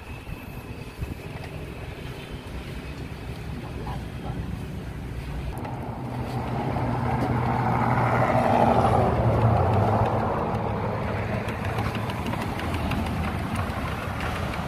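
A motor vehicle's engine running, growing louder to a peak about eight to ten seconds in, then easing off somewhat.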